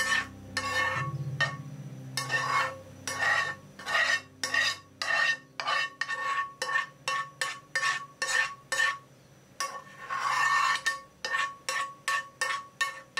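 A ladle stirring curry udon in a white ceramic pot: quick repeated scraping strokes, about two a second, each with a faint ringing note, and one longer sweep near the end.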